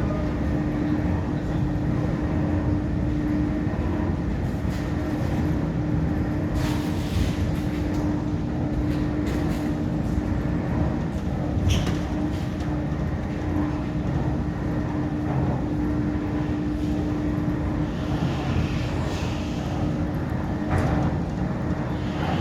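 Steady low mechanical rumble with a constant hum, and a few brief hissing bursts along the way.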